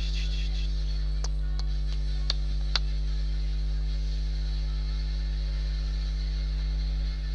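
Steady low electrical hum, with four short clicks between about one and three seconds in.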